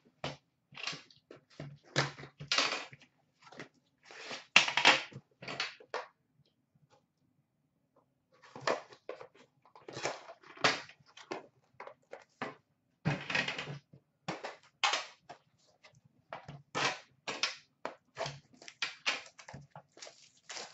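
Packaging rustling and crinkling as a sealed hockey card box is unwrapped and its tin opened by hand: irregular short crackles, with a pause of about two seconds some six seconds in.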